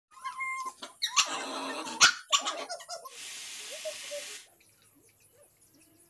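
Small white dog barking in several harsh bursts over the first three seconds, the loudest about two seconds in, followed by about a second of steady hiss.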